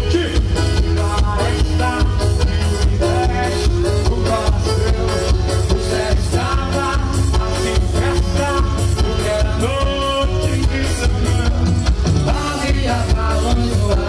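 Forró pé de serra played live by a band with a singer, over a steady, quick beat.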